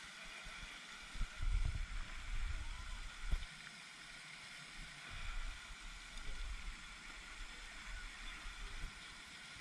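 Wind rumbling on the microphone in irregular gusts, strongest between about one and three and a half seconds in, over a steady faint hiss, with one sharp knock a little after three seconds.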